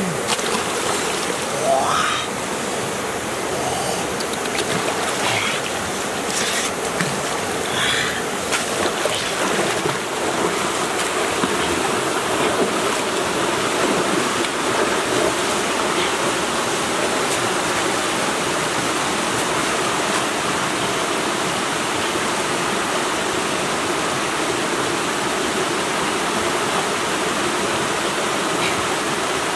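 Steady rush of a small waterfall and stream, with a few splashes from a person wading through the water in the first several seconds.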